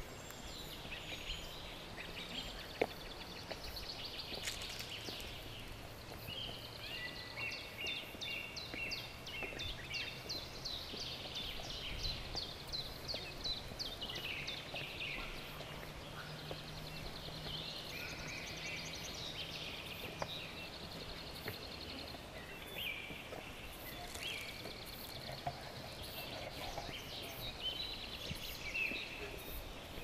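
Woodland birds chirping and singing in quick, repeated high notes and trills over a steady outdoor background, with footsteps on stone steps.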